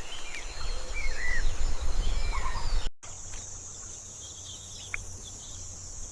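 Wild birds giving short curved, whistled calls over a low rumble, then after an abrupt cut about halfway through, a steady high insect drone with a few scattered chirps.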